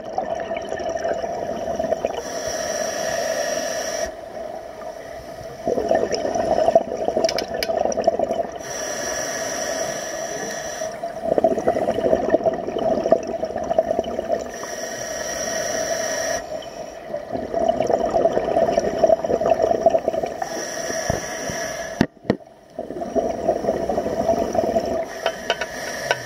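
Scuba diver breathing through a regulator underwater: a roughly two-second hissing inhale alternates with a longer, louder bubbling exhale, about one breath every five to six seconds, four breaths in all.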